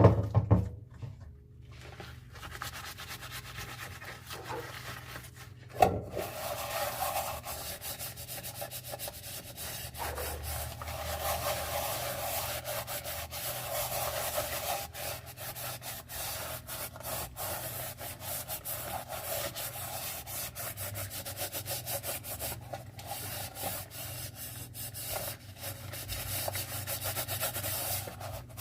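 Dishes being scrubbed by hand: continuous rubbing and scrubbing strokes. A sharp knock comes at the start, and another about six seconds in, before the scrubbing runs on steadily.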